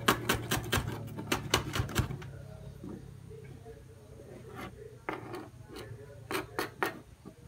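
Kitchen knife chopping on a plastic cutting board: a quick run of sharp taps, about five a second, for the first two seconds, then softer scraping, then a few more scattered strokes in the second half.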